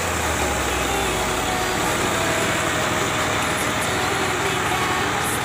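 Al-Ghazi 65 hp tractor's diesel engine running steadily under load while it powers a thresher, making a dense, loud, continuous din. A low note drops right at the start, then holds steady.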